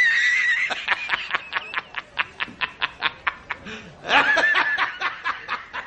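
A person laughing: a quick run of breathy snickers, about five a second, with a higher-pitched laugh about four seconds in.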